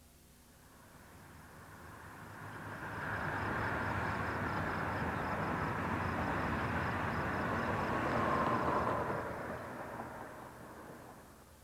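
Steady outdoor rushing noise on a camcorder's microphone. It fades in over the first three seconds or so, holds, and fades away over the last three.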